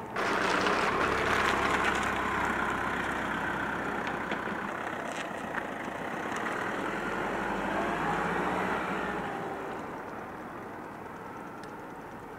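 Engine running with a steady low hum under a rushing noise that starts abruptly, is loudest in the first couple of seconds and fades toward the end.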